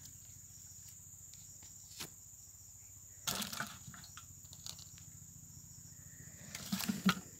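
A faint, steady high insect drone, with a few knocks and rustles from handling the plastic bucket, the loudest about three seconds in and near the end.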